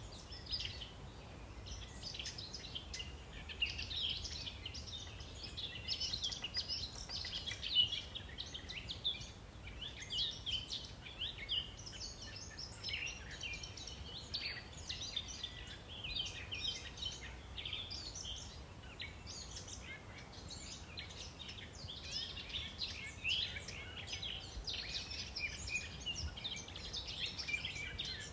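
Many birds chirping and twittering continuously, their short calls overlapping.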